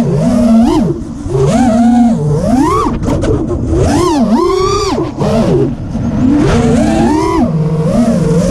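5-inch FPV quadcopter's brushless motors and propellers whining, heard from the craft itself. The pitch rises and falls sharply and repeatedly as the throttle is punched and let off through turns, with brief drops near one second in and again about halfway.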